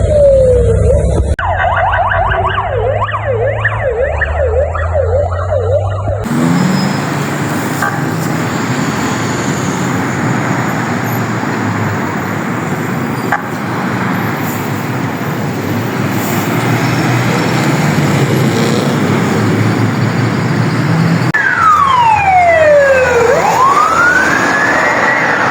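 Emergency-vehicle sirens across several clips. First a wail sweeps down, then a fast yelp rises and falls about twice a second. A long stretch of heavy road and engine noise with little siren follows, and near the end a slow wail falls and rises again.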